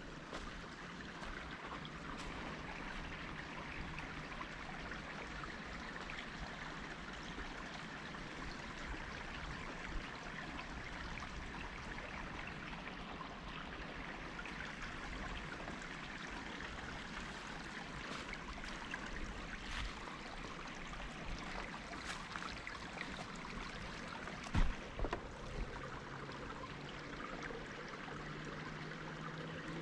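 Steady rush of running water, with a few soft knocks, the loudest about 25 seconds in.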